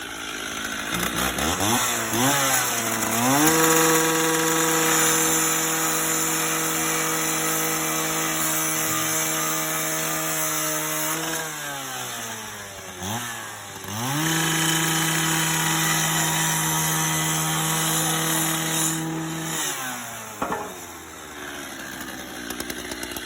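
Electric angle grinder cutting steel brackets off a plow frame. The motor spins up, runs steady for about eight seconds, winds down, then starts again for a second steady run of about six seconds before winding down near the end.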